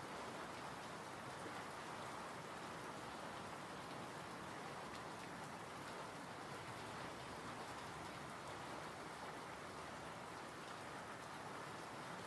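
Steady rain falling, an even patter of drops on surfaces without let-up.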